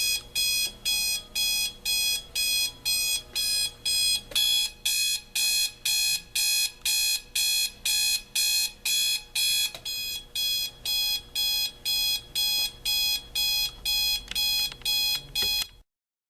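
Advance 3133 electric alarm clock sounding its alarm through its front speaker: a steady run of beeps, about two a second, that stops abruptly near the end.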